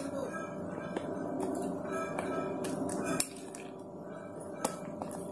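Wire whisk scraping batter out of a glass bowl and clinking against its rim, a few sharp clicks over a faint steady hum, the loudest click a little past three seconds in.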